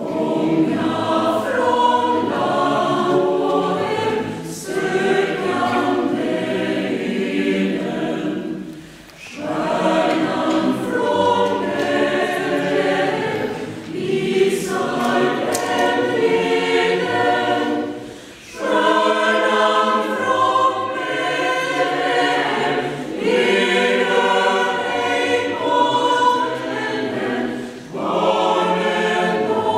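Mixed choir of women's and men's voices singing, in long phrases broken by brief pauses about every nine seconds.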